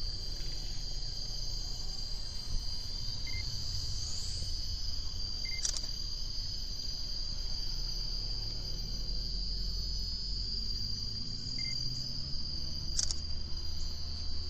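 Steady, high-pitched chorus of insects, likely crickets, with a low rumble underneath and two brief clicks.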